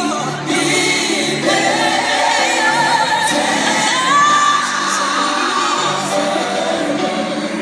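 A live concert performance heard from the audience: a singer holding long, gliding notes over a band's accompaniment, with a rising held note about four seconds in.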